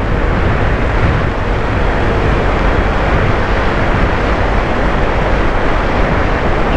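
Steady rush of wind and road noise on the microphone of a moving motor scooter, with no clear engine note above it.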